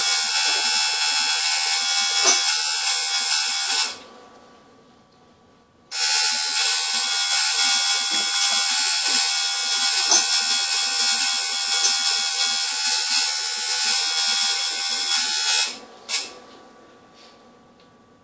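Electric tattoo machine buzzing steadily, stopping about four seconds in, starting again two seconds later and stopping once more near the end.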